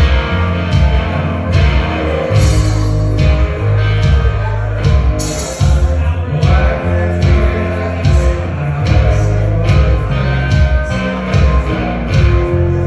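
Live rock band playing loud, heavy electric guitar and bass guitar over a steady beat.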